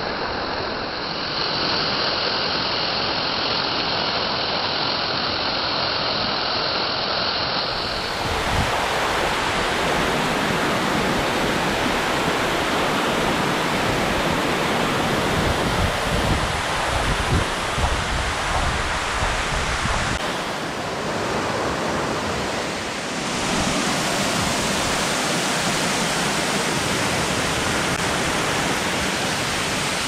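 The Namekawa Great Falls pouring and splashing down a broad rock face at low flow: a steady, loud rushing of falling water whose tone shifts abruptly about eight seconds in and again near the end.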